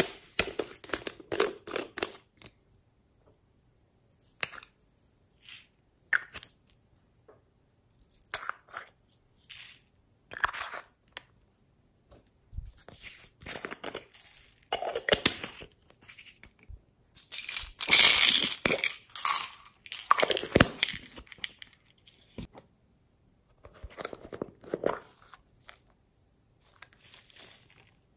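Hands squeezing and stretching slime, making short bursts of crackling, crunching sounds with silent gaps between them; the loudest burst comes about eighteen seconds in.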